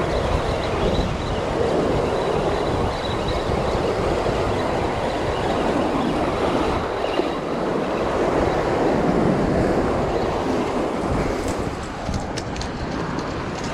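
Sea waves surging and washing against a rocky shoreline, with wind buffeting the microphone. There are a few light clicks near the end.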